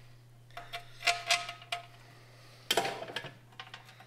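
Metal bolts clicking and clinking against the metal transmission pan as they are pushed through the pan's bolt holes and new gasket, with a few light ticks that ring briefly and one louder clank near the end.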